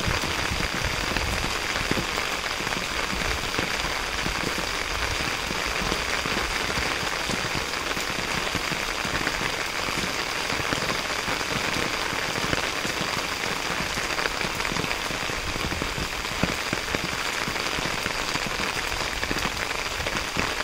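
Steady rain falling: an even hiss dotted with many small drop hits.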